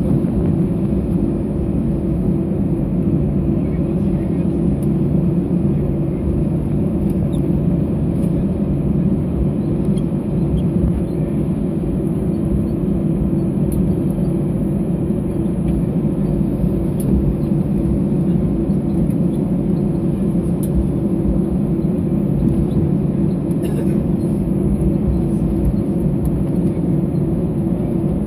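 Steady engine drone and rumble inside the cabin of an Airbus A319-112 taxiing after landing, its CFM56 engines at taxi idle.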